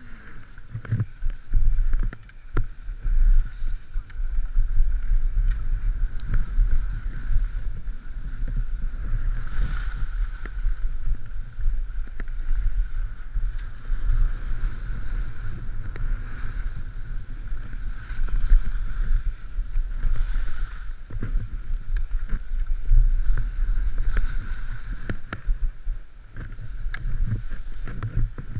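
Wind buffeting a helmet-mounted action camera's microphone, over the hiss and scrape of skis running across chopped, packed snow, with scattered clicks and knocks from the skis and poles.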